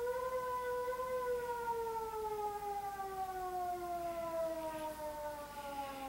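Russian civil defense warning siren sounding one long tone, rising a little about a second in, then slowly falling in pitch. It is the 'Attention everyone' signal, sounded during a test of the warning system.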